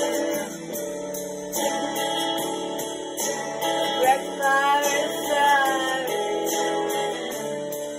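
A woman singing a slow ballad over a recorded acoustic guitar accompaniment, her voice sliding between held notes, with a light high tick about twice a second.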